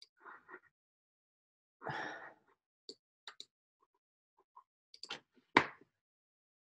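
Computer mouse or trackpad clicks while opening a file from a right-click menu: a few soft, scattered clicks, and one sharper, louder click about five and a half seconds in. Otherwise near quiet, with a short soft noise about two seconds in.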